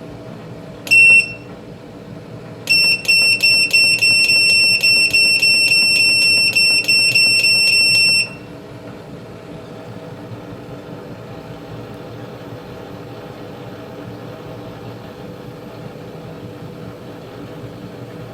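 Electronic beeps from a wall-mounted gas boiler's control panel as its output is stepped up. One short beep comes about a second in, then a rapid run of about four beeps a second for some five seconds. Under it is the steady hum of the boiler running in heating mode.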